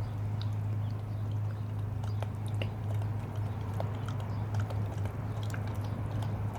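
Bernese mountain dog puppy snapping and licking at sprinkler spray, scattered wet clicks of its jaws and splashing water over a steady low hum.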